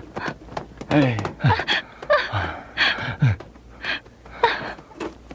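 Short gasps and cries from a couple of voices, about one a second, mixed with knocks and thuds as a small floor fire is beaten and stamped out with a sack.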